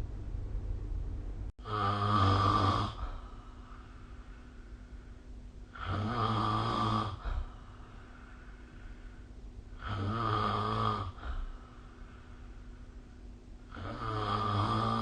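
A person snoring, four snores about four seconds apart, each lasting over a second, with a faint steady hum between them.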